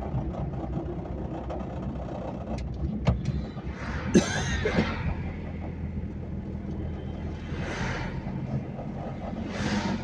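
Diesel car engine running with road noise, heard from inside the cabin while driving: a steady low hum, a few sharp clicks about three seconds in, and several brief swells of noise.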